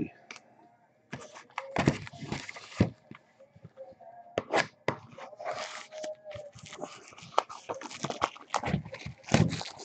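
Cardboard trading-card boxes handled on a tabletop: irregular knocks, taps and scrapes as the boxes are slid and set down.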